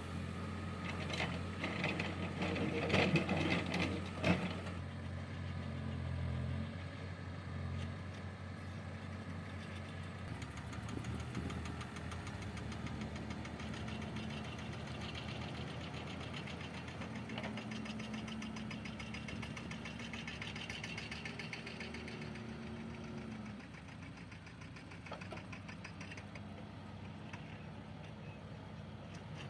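Diesel engine of a backhoe loader running steadily, with a louder clattering stretch about one to four seconds in.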